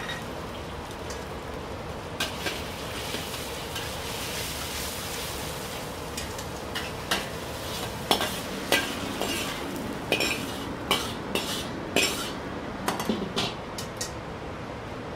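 Minced wagyu beef sizzling in a carbon-steel wok with a steady frying hiss, while a metal wok spatula scrapes and clanks against the pan. The clanks are few at first and come quickly one after another in the second half.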